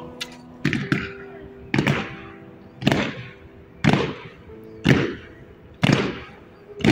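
Honour guard's boots stamping on stone paving in a slow ceremonial march, one heavy stamp about every second.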